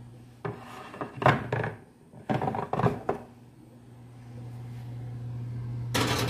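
Metal clattering of an oven's wire rack in two quick bursts, then a glass casserole dish scraping across the wire rack near the end as it is slid into the oven, over a steady low hum.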